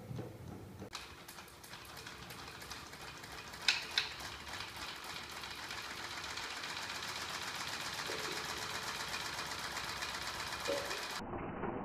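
Battery-powered home-built flywheel and magnet crank engine running, its small electric motor turning the crank linkage and three stacked flywheels with a rapid, even mechanical clatter. The clatter grows louder over the first few seconds, with two sharp clicks about four seconds in.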